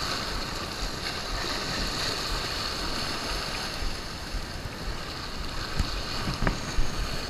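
Surf washing against jetty rocks, a steady wash of water noise, with wind rumbling on the microphone.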